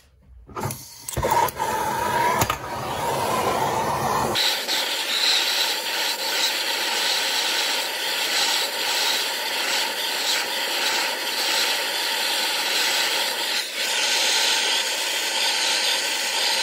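Handheld gas torch burning with a steady hiss while heating a piston's pressed-in wrist pin so that it can be driven out. The sound is rougher for the first few seconds, then changes about four seconds in and holds steady.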